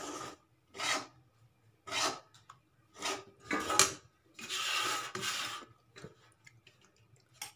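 Steel spatula scraping and pressing thick rice-flour and jaggery dough against a kadhai, in separate strokes about once a second, with a longer scrape about five seconds in.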